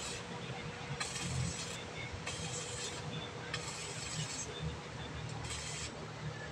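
Electric arc welding on steel in short runs: about five bursts of hiss, each half a second to a second long, broken by brief pauses as the welder stops and restarts the arc.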